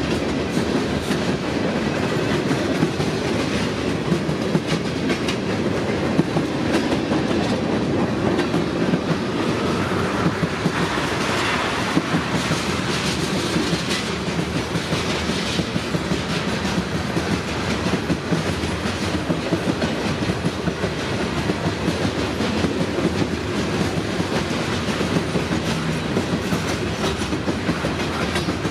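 Freight cars of a long mixed freight train rolling past: a steady rumble of steel wheels on rail, with frequent clicking as the wheels cross rail joints.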